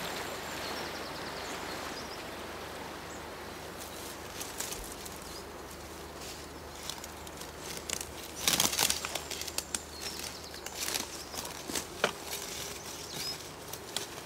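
Rushing waterfall noise that fades out over the first few seconds, then footsteps crunching and rustling through dry leaf litter and forest undergrowth, the loudest flurry of crackling steps about halfway through.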